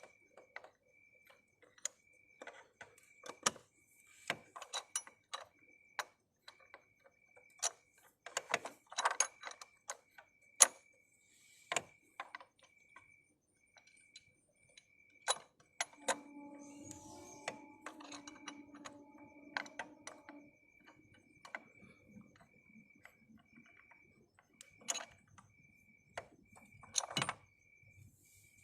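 Scattered clicks, knocks and clinks of tools and parts being handled, over a faint high beep that repeats steadily about every 0.7 seconds. A steady hum comes in from about 16 to 20 seconds.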